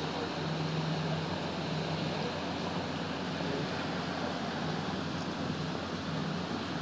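Canal tour boat's engine running steadily underway, a low even hum over a steady rush of water and wind.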